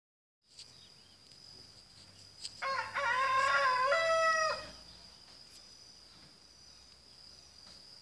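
A rooster crows once, a single call of about two seconds that steps down in pitch near its end, over a steady high-pitched insect whine.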